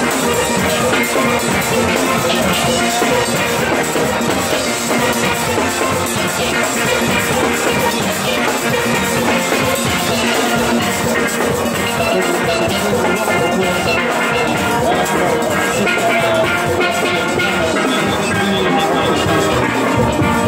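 Steel band playing live at close range: many steelpans struck in a fast, continuous melody, with drums beneath them.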